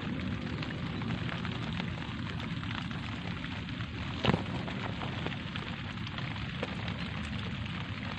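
Light rain falling steadily, a soft even hiss dotted with many small drop ticks, with one sharper, louder tick about four seconds in.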